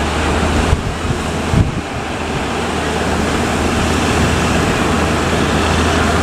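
Loud, steady rush of sea surf and wind, with wind buffeting the microphone during the first two seconds and a steady low hum underneath.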